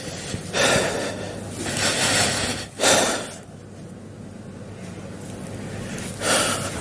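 A man's loud, heavy breaths: three noisy exhales or sighs in the first three seconds and another near the end.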